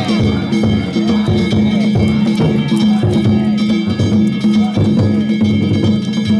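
Danjiri float music: taiko drums and metal gongs struck in a fast, steady rhythm, with the gongs' ringing held between strokes.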